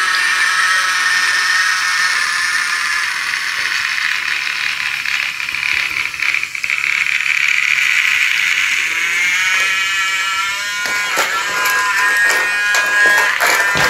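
Battery-powered toy locomotive running on wooden track: a steady high whine from its small motor and gears, with sharp clicks in the last few seconds as the wheels cross the track joints.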